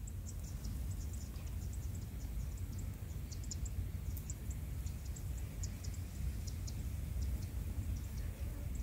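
Insects chirping in quick, irregular high chirps over a steady low rumble.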